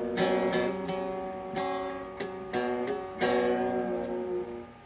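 Acoustic guitar strummed: several chord strokes, with the last chord ringing out and fading near the end.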